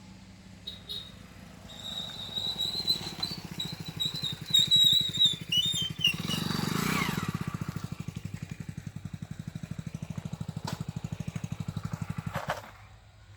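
A road vehicle's engine running close by with a rapid, even pulse, swelling about halfway through and then holding steady before it cuts off shortly before the end. Before it comes a high wavering tone.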